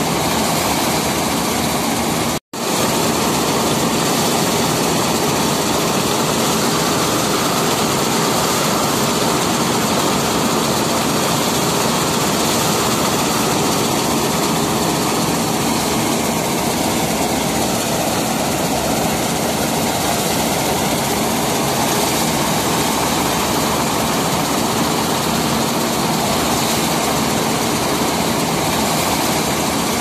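RAM-985 combine harvester running: a loud, steady mechanical drone of its engine and machinery. The sound cuts out for an instant about two and a half seconds in.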